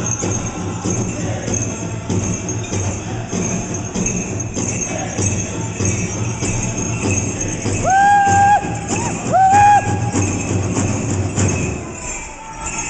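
Powwow drum and singers playing a chicken dance song, a steady drumbeat under singing, with dancers' leg bells jingling. About eight seconds in there are two loud, high held notes, each rising into pitch, and the drumbeat drops out near the end.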